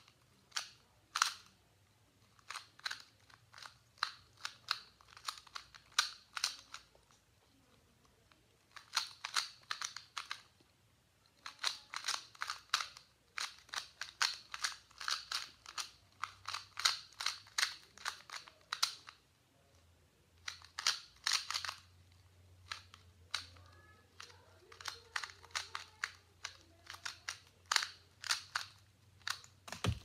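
A 2x2 speed cube being turned fast by hand: its plastic layers click in quick runs of turns, broken by short pauses of a second or two.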